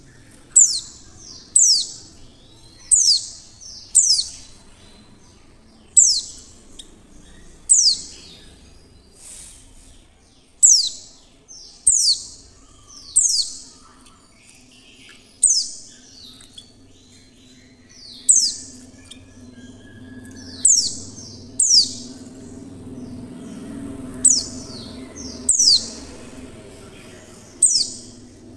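Female white-eye (pleci) giving short, sharp high calls, each dropping steeply in pitch, one every second or two. It is the kind of female call used to coax male pleci into opening their beaks and singing.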